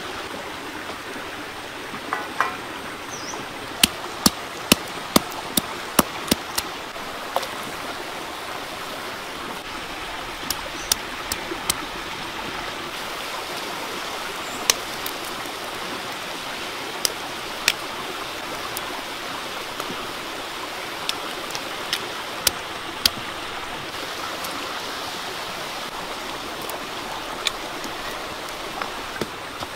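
Steady rushing of a shallow stream over rocks, with sharp irregular clicks and pops scattered throughout, several close together about four to seven seconds in.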